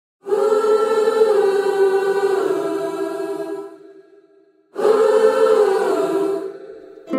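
Choral singing in two long held phrases: the first starts just after the opening silence and fades out about four seconds in, the second follows about a second later and fades out. A plucked string note comes in at the very end.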